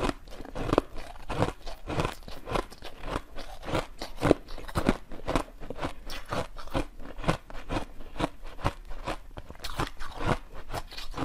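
Frozen basil-seed ice being bitten and chewed, a quick, uneven series of sharp crunches, about three a second.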